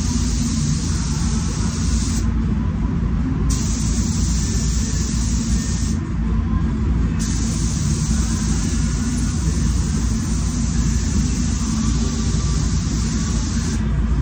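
Compressed-air spray gun (SATA Jet 5000 RP, 1.3 mm tip) hissing as it sprays Glasurit 100 Line paint. It runs in three long passes, with a short break about 2 s in and another about 6 s in, and stops near the end. Under it throughout is a steady low rumble of spray-booth ventilation.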